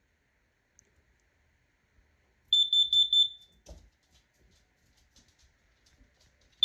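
Carbon monoxide alarm sounding under its test button: four quick high-pitched beeps about two and a half seconds in, then one short beep near the end.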